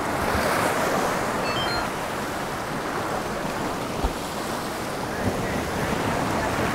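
Surf washing and breaking over rocky reef, a steady rushing sea noise.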